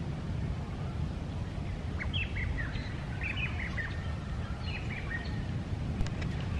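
Birds chirping in short, high notes over a steady low outdoor rumble; the chirps come in a cluster from about two seconds in until a little past five seconds.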